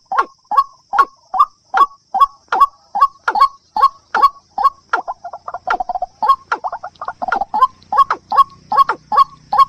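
Recorded calls of a watercock and a white-breasted waterhen: short, sharp notes repeated about two and a half times a second, crowding closer together for a few seconds in the middle.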